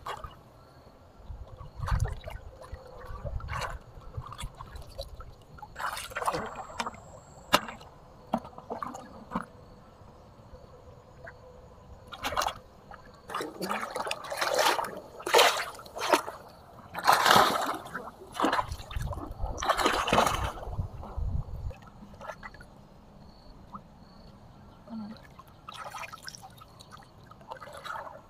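Water splashing and sloshing in irregular bursts, loudest in a cluster a little past the middle.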